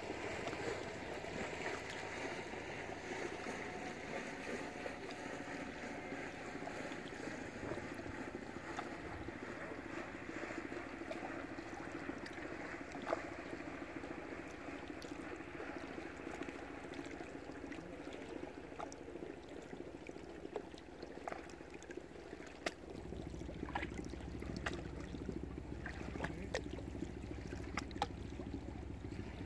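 Water lapping and trickling around moored sailing boats, a steady wash with scattered light clicks and knocks, more of them in the second half. A low rumble comes in about three-quarters of the way through.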